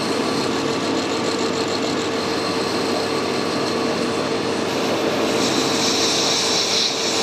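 Metal lathe running steadily with a cutting tool working the die-cast zinc door handle held in the chuck. A higher hiss from the cut joins about five seconds in.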